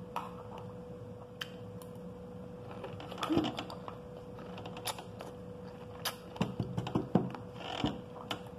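Metal spoon clicking and scraping against a glass plate of pomegranate seeds, with the crunch of the hard seeds being chewed. The clicks are irregular and come thickest in the last few seconds, over a faint steady hum.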